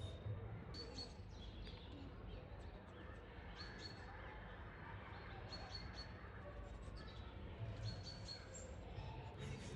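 Small birds chirping with short, high, repeated calls over a low background murmur.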